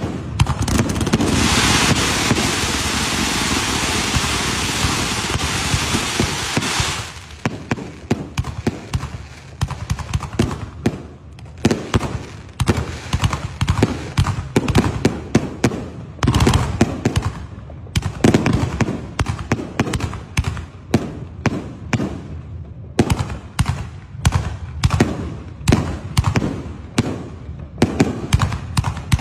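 Aerial fireworks going off. A dense, steady hissing crackle starts about a second and a half in and lasts about five seconds, followed by a quick, irregular string of sharp bangs as shells burst overhead.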